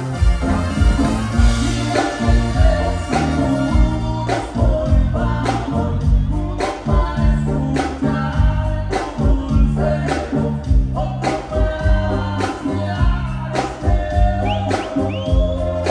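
Live banda music: saxophone and band over a steady driving beat with a stepping bass line, with singing. A couple of high gliding whistles sound near the end.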